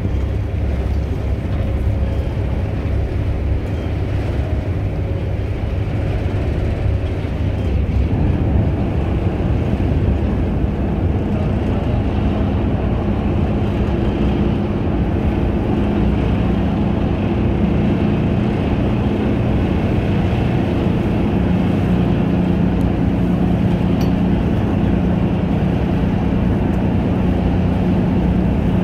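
Steady drone of a harbour ferry's engines under way, with a low hum that grows stronger about eight seconds in.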